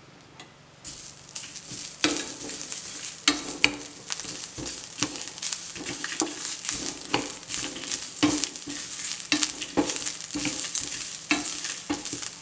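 Wooden spatula stirring and scraping roasted lentils and freshly added shredded coconut around a hot stainless steel pan, with strokes about once a second over a light sizzle that starts about a second in.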